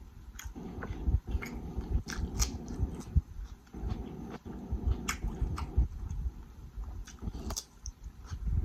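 Close-miked chewing of a grinder sandwich: irregular wet mouth smacks and sharp clicks as the bread and deli meat are chewed.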